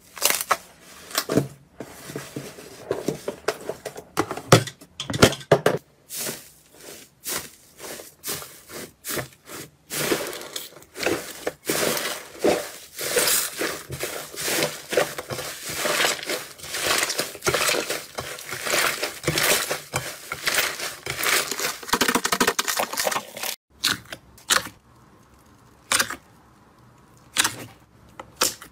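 Hands stretching, pulling and squishing slime, making a dense run of sticky clicks and pops. After a short break near the end, only a few separate pops come as thick jelly slime is pressed.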